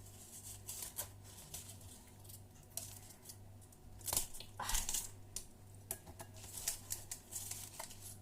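Irregular short scrapes and light clicks of freshly microwaved cookies being pried loose, separated and laid out with a utensil, over a low steady hum.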